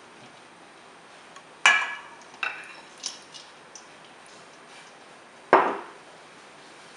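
A mixing bowl, balloon whisk and stainless steel ice-bath bowl knocking together as the bowl of whipped cream is lifted from the ice water: a sharp ringing clink, a few lighter clinks, then a heavier knock near the end.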